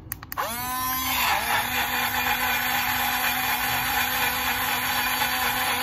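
Aoozi portable rechargeable personal blender running. Two quick clicks, then its small motor spins up with a rising whine over about half a second and runs at a steady, loud pitch, blending a milk drink.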